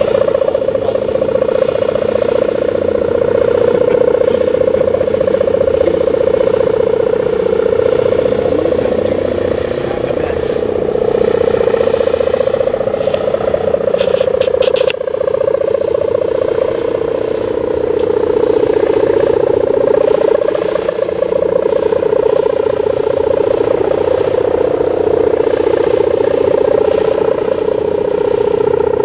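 Kite hummer (sendaren) with a mica-film reed, droning in the wind with a steady buzzy 'gerr' hum whose pitch drifts slowly up and down.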